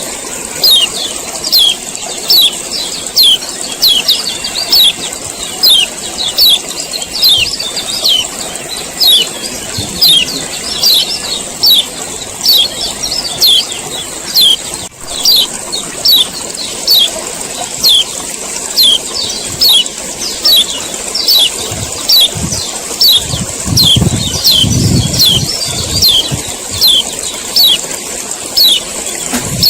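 Male kecial kuning (a white-eye) giving its 'ciak ciak' call over and over: short, sharp, falling chirps about once a second, over a steady high hiss. A low rumble comes in near the end.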